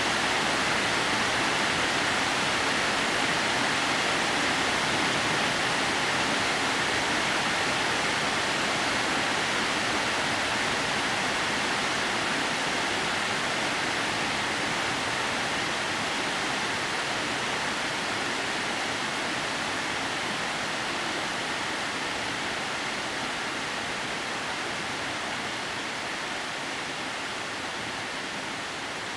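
Steady rush of a waterfall, water falling about 30 m down a rock face in thin threads, slowly growing quieter.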